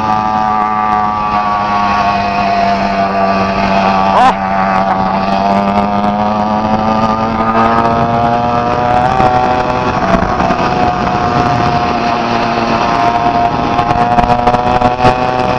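80cc two-stroke motorized-bicycle engine running under way through a bare-pipe exhaust, its pitch wavering with the throttle. It makes a quick rise and drop in pitch about four seconds in.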